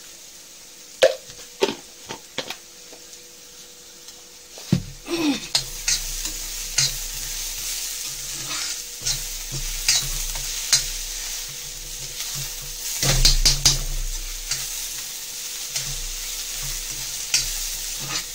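Steel spoon stirring and scraping frying masala in a black kadhai, over a steady sizzle. A few sharp spoon taps come in the first seconds; from about five seconds in the scraping strokes run on without a break, loudest around thirteen seconds in.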